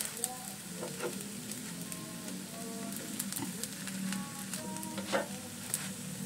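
Wingko babat coconut cakes sizzling in a hot grill pan, with scattered clicks and scrapes of a silicone spatula pushing and turning them on the pan.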